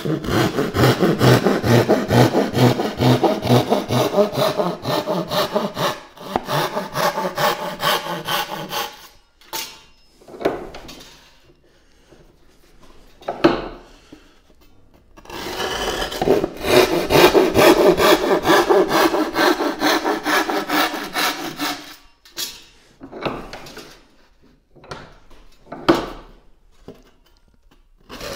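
Japanese-style pull saw cutting through a Valchromat panel (coloured wood-fibre board) by hand, with rapid, even strokes. The strokes come in two long runs, separated and followed by pauses with a few single strokes. The saw is cutting quickly through the board.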